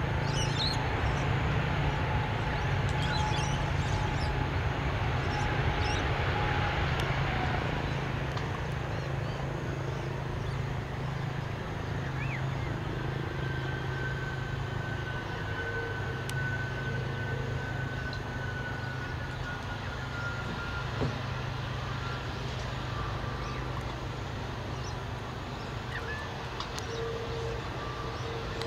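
Twin-engine jet airliner's engines running: a steady noise with faint whining tones that slowly grows quieter. Small birds chirp now and then.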